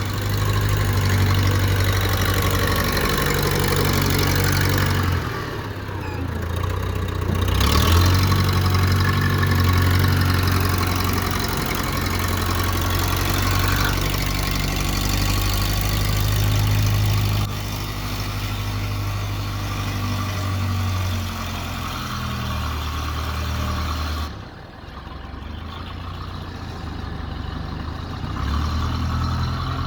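Engine of a 1969 backhoe loader running as the loader works a gravel pile, with the throttle rising and falling; it drops back twice, about five seconds in and again past the twenty-second mark, then picks up again.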